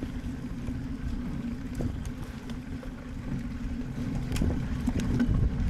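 Riding noise from a bike-mounted camera on a gravel bike racing fast through dirt singletrack: wind rumbling on the microphone and tyres rolling, with a few light clicks and rattles.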